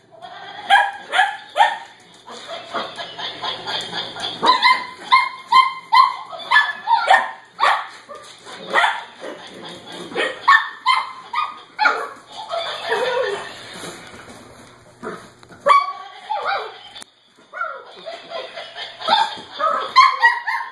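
Cavalier King Charles Spaniel puppies barking and yipping in quick, short calls while they wrestle a plush toy, with a brief lull a little past the middle.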